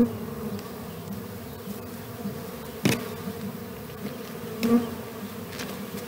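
Honeybees buzzing around sugar-syrup jar feeders, with the buzz swelling now and then as bees fly close. There is a sharp click about three seconds in.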